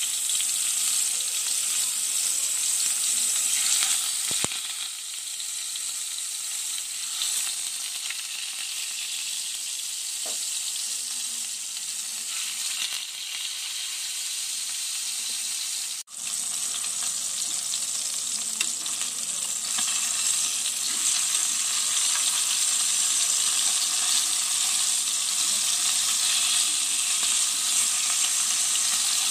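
Barracuda steaks deep-frying in hot oil in a steel pan: a steady sizzling hiss that breaks off for a moment about halfway through.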